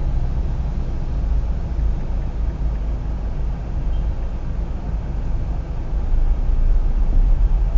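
Low, steady rumble of engine and street-traffic noise picked up by a car dashcam's built-in microphone inside the cabin, growing a little louder near the end.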